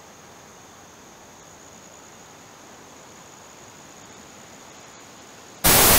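Faint steady outdoor hiss with a thin, high, unbroken insect drone such as crickets make. Near the end a sudden loud burst of white-noise static cuts in.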